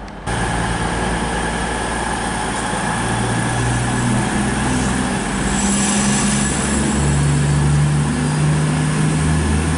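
A CrossCountry Voyager diesel multiple unit running slowly into the platform, its underfloor diesel engines humming steadily with the engine note shifting a few times, getting slightly louder as it approaches.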